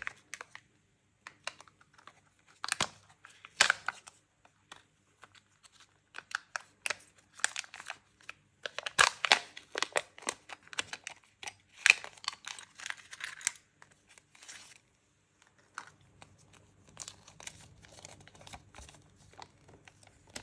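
Crinkling and tearing of a Kinder Joy egg's foil lid and plastic shell as it is opened, in separate bursts of rustling with a few sharp clicks from the plastic toy capsule. Softer paper rustling follows near the end as a folded leaflet is opened out.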